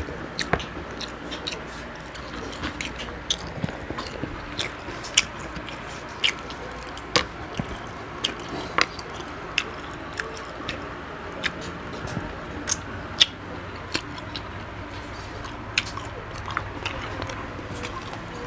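Close-up chewing and biting of crunchy frog meat: irregular crunches and wet mouth clicks, several a second at times.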